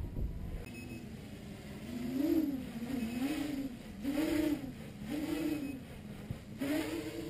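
Armattan 355 tricopter's three 2600kv brushless motors buzzing, the pitch swelling and dropping back about once a second as the throttle is punched and released during acrobatics.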